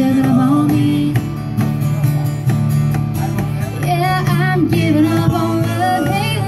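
Live music from several strummed acoustic guitars, with singing coming back in about four seconds in.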